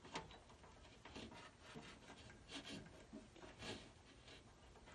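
Faint rubbing and a few soft clicks of hands handling wires and pulling a spade connector off a blower motor capacitor.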